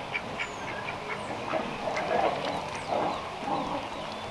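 Farmyard poultry calling, with small birds chirping in the background.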